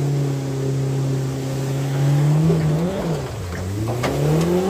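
Mercury outboard jet motor running under power: its pitch holds steady, rises about halfway through, dips sharply, then climbs again to a higher rev.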